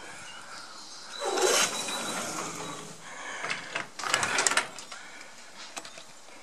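Scraping and clicking handling noise in two bursts, the first about a second in and the second around four seconds in, as the camera is moved about against a window frame.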